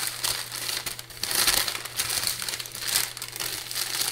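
Packing paper crinkling and rustling in irregular handfuls as it is handled and pulled aside while unpacking a box, loudest about one and a half seconds in.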